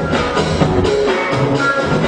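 Music with drums and a steady beat, with a short melodic figure repeating every couple of seconds.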